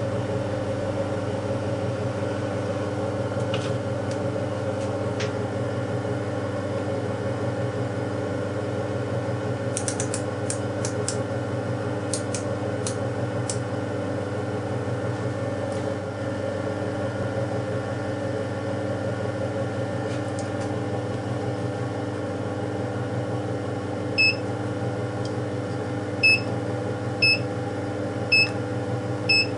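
Steady mechanical hum throughout, with a few light clicks about ten seconds in. Near the end, five short electronic beeps about a second apart from the keypad of a Yihao VM600-2 digital readout as a measured dimension is keyed in.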